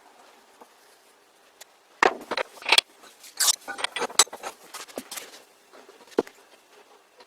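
Small metal parts clinking and clattering against each other and a hard surface: a quick run of sharp knocks from about two seconds in to about five seconds, then one more knock about a second later.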